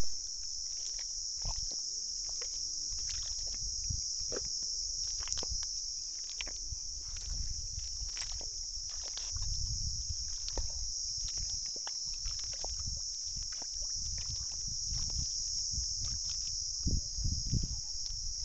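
Dense chorus of calling insects, a steady high shrill drone that goes on without a break. Scattered clicks and low rumbling lie under it, louder around the middle and near the end.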